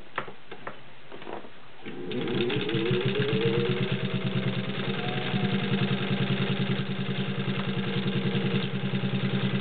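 Singer 15-91 sewing machine's potted direct-drive motor starting about two seconds in with a rising whine, then running steadily as the needle stitches through three layers of garment leather in a fast, even rhythm. A few light clicks come before the motor starts.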